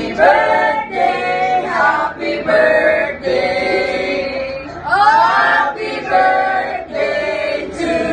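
A group of men, women and children singing a song together, several voices at once in phrases of a second or so.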